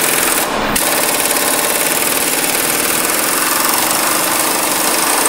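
Impact wrench hammering on the pitman arm nut of a power steering gearbox to break it loose. It stops briefly about half a second in, then runs on.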